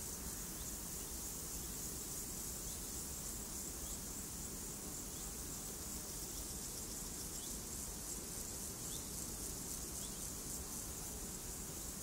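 Insects chirring in a steady, high-pitched continuous trill over a low, steady rush.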